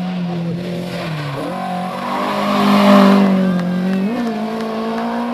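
Race car engine accelerating hard up a hill-climb road, its note stepping in pitch at gear changes about one and four seconds in. It is loudest about three seconds in.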